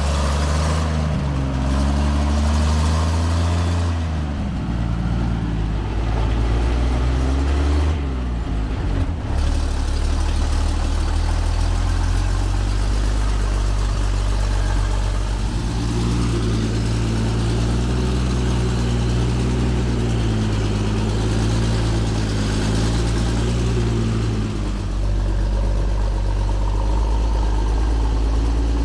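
Old ZIL truck's engine running under the load of a bed full of wet sand, heard from inside the cab; its pitch rises and falls repeatedly as the throttle is worked, with a short dip about eight seconds in.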